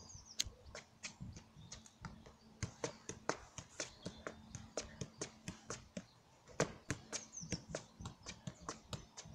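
Football keepy-ups: the ball tapped repeatedly off foot, knee and thigh, a few irregular touches a second, mixed with shoe scuffs on tarmac, with one louder knock about two-thirds of the way through.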